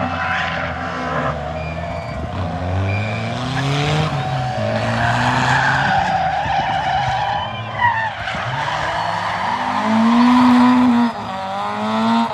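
Rally car engine under hard acceleration, its revs climbing and dropping several times as it shifts gears, with the tyres skidding. It is loudest about ten seconds in.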